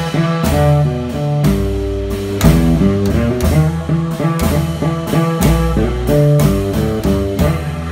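Live acoustic string band playing a tune with a steady beat: an upright bass plucks the low notes under quick picked string melody.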